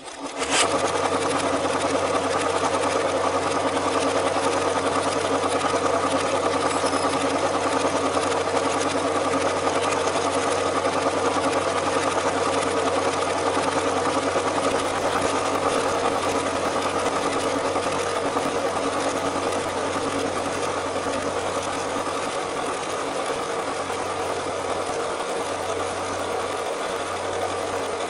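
Cine film projector running, a steady mechanical whirr with a constant hum that starts abruptly and eases slightly later on.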